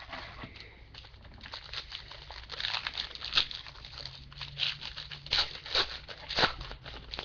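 Crinkling of a baseball-card pack wrapper being opened and handled: a run of irregular crackles, louder through the middle seconds.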